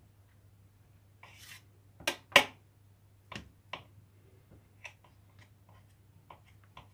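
Knife tapping and clicking against a stainless steel tray while splitting strands of string cheese: a scattering of sharp clicks, the loudest about two and a half seconds in, with a brief scrape before them.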